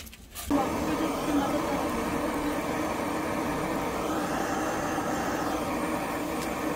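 Handheld butane torch flame rushing steadily as it is played onto charcoal briquettes to light them. The sound starts about half a second in and holds even throughout.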